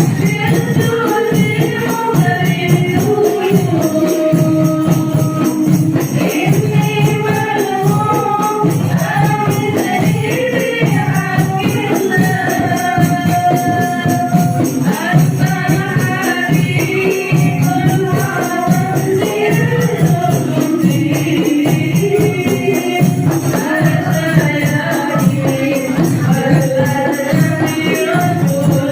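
Hadroh ensemble playing through a sound system: voices singing a sholawat melody over a steady, busy beat of rebana frame drums with jingles.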